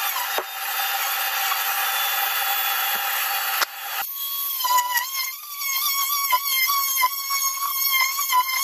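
Power tool cutting out a hole in the ceiling to enlarge the opening for a bathroom fan housing. About four seconds in, the sound changes abruptly to a steady whine with rapid ticking.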